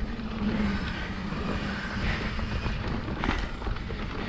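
Mountain bike rolling down a dirt trail: steady rumble of tyres on dirt with wind on the camera microphone, and a faint knock about three seconds in.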